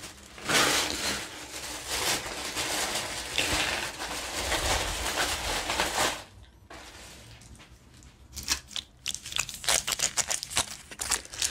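Hands handling something: a continuous rustle for about six seconds, then, after a quieter moment, a run of quick sharp crinkles and clicks.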